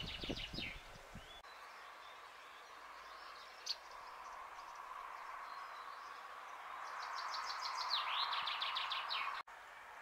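A small songbird singing in the background: a quick run of high repeated notes ending in a falling flourish, at the very start and again about seven seconds in, over a steady outdoor hiss. Low rumbling thumps sound in the first second or so.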